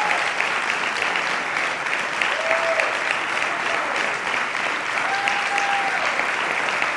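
Audience applauding steadily, a dense even clatter of clapping hands, with two short held calls from the crowd partway through.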